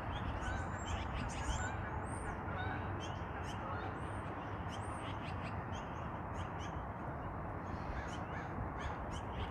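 Yellow-billed magpies calling, many short calls throughout, over a steady low background noise.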